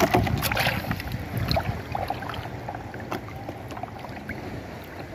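Shallow seawater splashing and lapping around a wader and a floating plastic basin. It starts with a scatter of small splashes and clicks, then settles into a quieter, steady wash.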